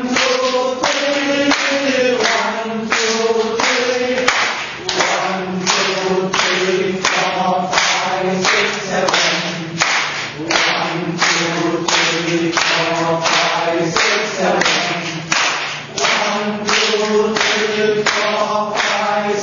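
A group clapping hands in a steady rhythm, about two claps a second, as part of the four-beat clapping exercise. Several voices sing together over the claps.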